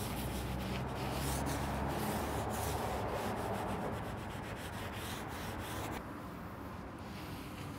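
Non-abrasive scouring pad scrubbing soapy water on the painted steel lid of a pellet grill, in rapid back-and-forth strokes. About six seconds in it gives way to a softer, quieter wipe with a microfiber cloth.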